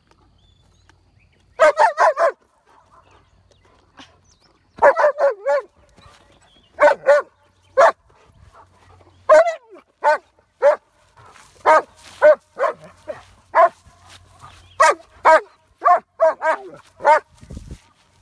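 German Shepherd barking in quick runs of two to four barks, repeated again and again with short pauses in between.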